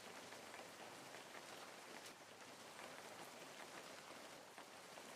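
Faint steady rain falling, with scattered small ticks of single drops.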